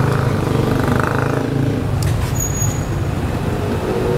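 A motor vehicle engine running steadily, with a brief high-pitched squeal about two and a half seconds in and a single sharp click just before it.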